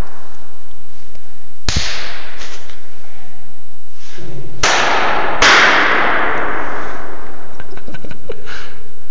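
Sharp hand claps in a reverberation chamber, three in all, about two, four and a half and five and a half seconds in. Each leaves a long reverberant tail that dies away slowly over several seconds, and the last clap is the loudest.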